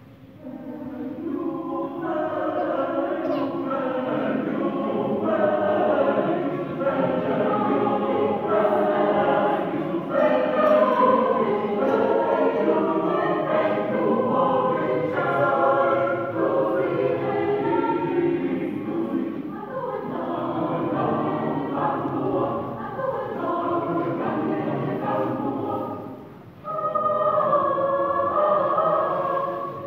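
A choir singing in a large church. The singing starts just after the opening, breaks off briefly near the end and comes back louder.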